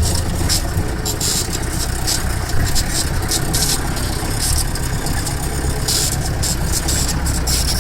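Jeep engine running steadily with a low rumble, and many short bursts of hiss on top.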